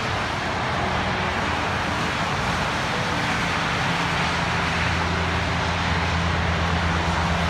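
Highway traffic: a steady rush of tyres on wet pavement, with a low engine drone joining about halfway through.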